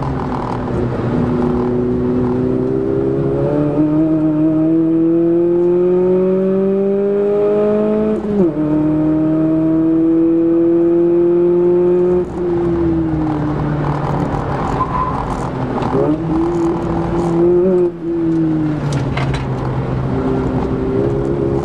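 Toyota Echo's 1.5-litre four-cylinder engine heard from inside the cabin while lapping a racetrack, over tyre and road noise. The revs climb steadily, drop sharply with an upshift about eight seconds in, climb again more slowly, then fall and pick up again a few times through the corners.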